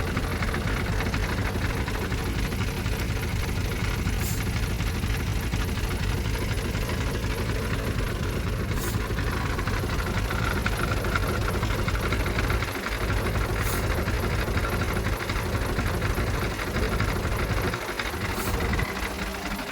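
Heavy diesel engine of an earthmoving machine running steadily with a deep rumble, dipping briefly twice.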